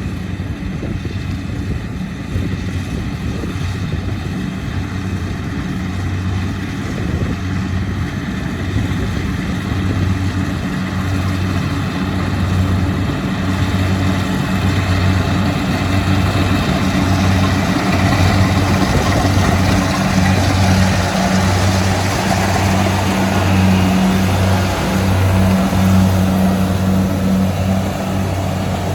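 Kubota DC-70 rice combine harvester at work, its diesel engine running steadily with a low hum that pulses in level. A rushing mechanical noise builds up over the second half and grows louder.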